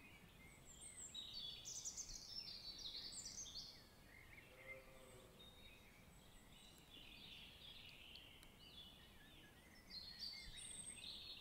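Faint birdsong: several birds chirping and trilling in high, quick phrases, busiest in the first few seconds and again near the end.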